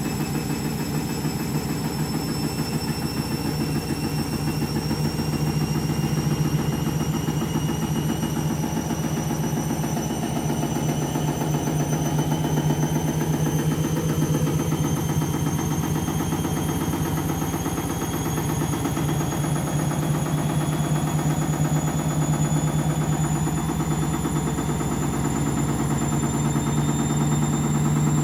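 Washing machine on its final spin with an out-of-balance load: a heavy low hum with a fast regular pulse from the drum, under a motor whine that rises slowly and steadily in pitch as the spin speeds up.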